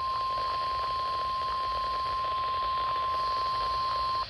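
NOAA Weather Radio's 1050 Hz warning alarm tone: a single steady tone over radio hiss that cuts off near the end. It signals that a weather warning broadcast follows, here a practice tornado warning test.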